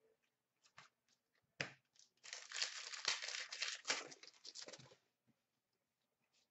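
A Panini Contenders hockey card pack's foil wrapper being torn open and crinkled for about three seconds, after a single sharp click.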